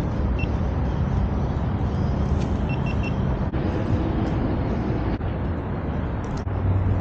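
A Honda Monkey's small single-cylinder four-stroke engine running under way, mixed with road and wind rush, starting abruptly and holding steady with a few brief dips.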